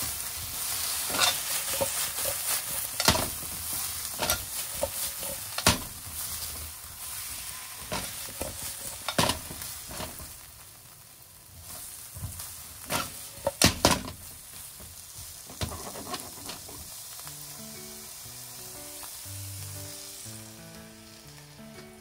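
Bamboo shoot pieces sizzling in oil and soy sauce in a nonstick wok, with a plastic slotted turner scraping and knocking against the pan as they are stir-fried. The stirring stops about two-thirds of the way in, the sizzle fades, and soft background music comes in.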